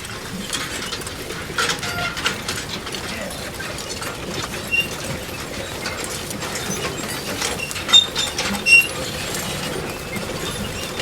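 Manure spreader running: a steady mechanical clatter of rattling, clinking parts with a few short high squeaks, and two louder knocks late on.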